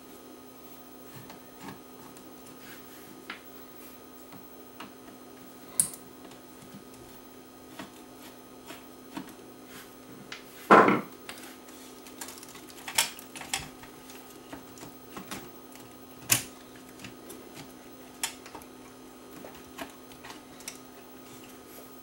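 Scattered small clicks and taps of hands handling a cassette deck's circuit board, metal chassis and wiring harness, with one louder knock about halfway through, over a faint steady hum.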